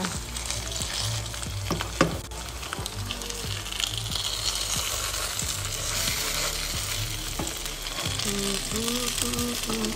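Corn tortillas topped with shredded beef and cheese frying in oil in a skillet: a steady sizzle, with a metal spatula clicking and scraping against the pan as the tacos are lifted and folded, the sharpest click about two seconds in.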